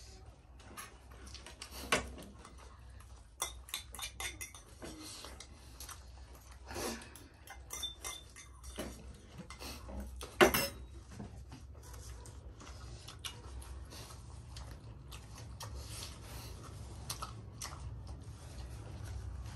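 Spoons clinking and scraping against steel bowls and ceramic plates as people eat, in scattered light clicks with a couple of sharper clinks, about 2 seconds in and about 10 seconds in.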